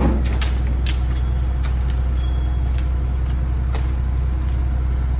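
Heavy engine running steadily with a deep, even drone, with a few sharp clicks or knocks over the first second and a half and another near four seconds.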